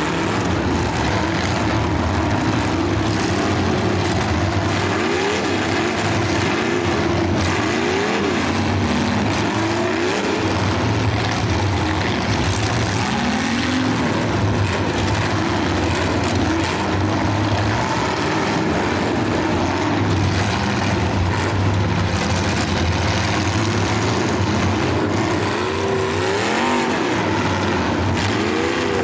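Several demolition derby cars' engines running together at a loud, steady din, revving up and down again and again, with a few faint knocks.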